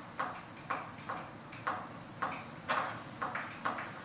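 Sharp metallic clicks, about two a second and unevenly spaced, from hand work at the lock of a five-point security front door.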